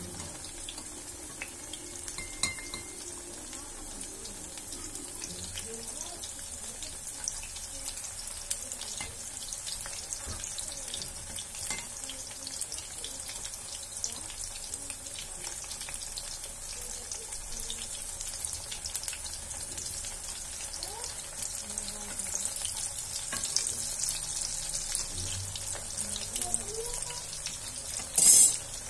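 Hot oil sizzling and crackling steadily around aloo tikki (potato patties) frying in a kadhai, with a brief louder burst near the end.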